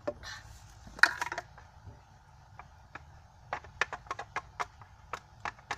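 Sharp clicks and taps from utensils and a glue bottle being handled: a brief scrape at the start, a loud clatter about a second in, then a quick run of clicks, about five a second, near the end.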